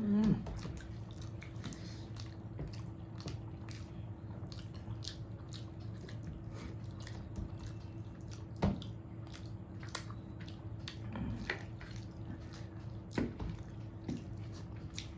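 Someone eating rice with mutton curry: soft, wet chewing and mouth clicks, with a few sharper smacks, over a steady low hum.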